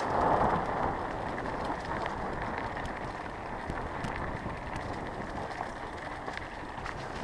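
A mountain bike rolling fast over a dirt and grass trail: steady tyre and wind rumble with a few scattered rattles and ticks from the bike, a little louder at the start.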